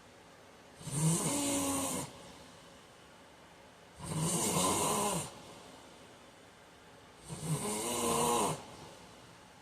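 A man snoring in his sleep: three long snores about three seconds apart, each a little over a second long, with quiet stretches of breathing between.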